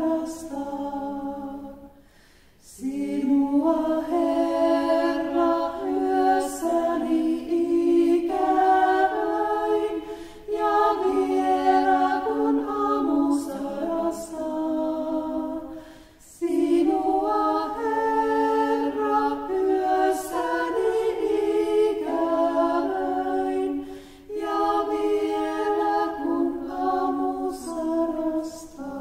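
Small group of women singing a short chant in harmony without accompaniment. The phrase is repeated several times, with brief breaths between the repeats.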